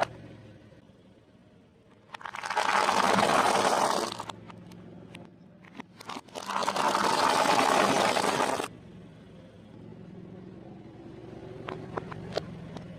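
Food being crushed under a car tire: two long stretches of crunching and crackling, each about two seconds, followed by a few sharp snaps near the end.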